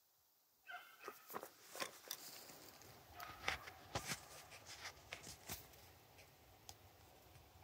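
Faint rustling and crackling of dry leaves and snapping twigs in brush, irregular, loudest around the middle. A hound bays once, faint and distant, about a second in.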